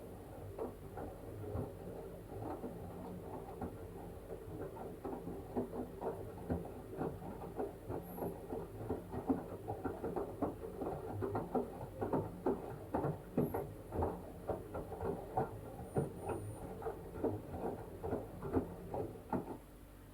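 LG washing machine drum turning a blanket through the wash water: a quick, irregular patter of splashing and sloshing over a steady motor hum, stopping abruptly at the end.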